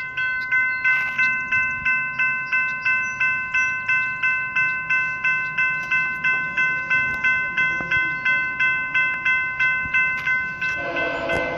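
Level crossing warning bell ringing in a steady, even rhythm of about two and a half strokes a second while the crossing lights flash. Near the end a louder, lower steady sound comes in over it: the approaching train's horn.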